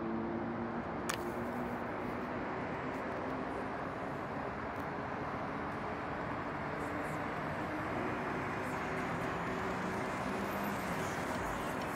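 REM electric light-metro train passing on an elevated guideway, its low steady hum heard under continuous city traffic noise. A single sharp click about a second in.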